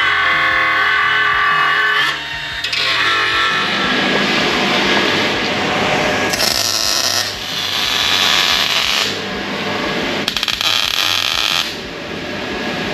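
A cordless power tool runs with a whine for about two seconds, then comes steel welding on a car's subframe rail in several separate bursts. The last burst crackles with sharp clicks.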